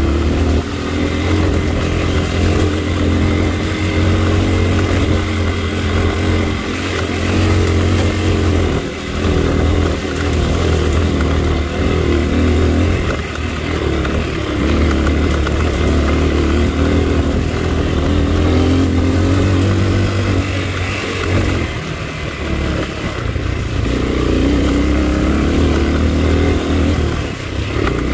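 Dirt bike engine running hard on a trail ride, its pitch rising and falling as the throttle is opened and closed, with short let-offs a few times.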